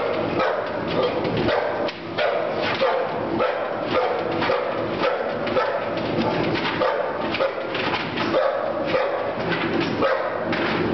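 American Pit Bull Terrier barking in rapid, nearly unbroken volleys, worked up for bite training.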